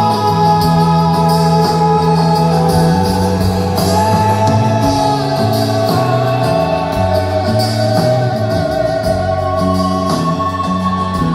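Live rock band performance heard in a concert hall: slow, held chords over a bass line that steps between notes, with a high wordless melody that slides between pitches like a voice.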